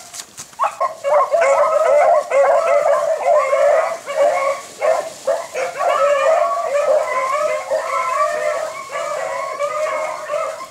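A pack of hunting beagles baying and yelping with many voices overlapping, the sound of the pack in full cry running a rabbit. The baying goes on almost without pause.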